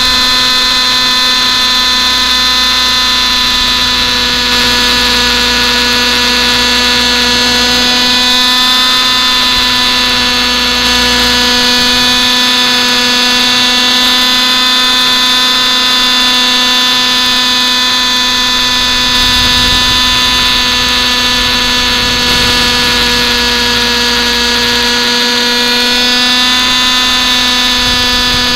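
Thunder Tiger Raptor 50 Titan RC helicopter's two-stroke nitro glow engine running steadily at high speed in flight, heard right beside the engine as a loud, high-pitched whine with only slight wavers in pitch.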